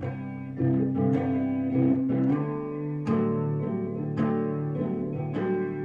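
Guitar strumming chords in an instrumental passage of a song, with sharp strokes about once a second and a change of chord about three seconds in.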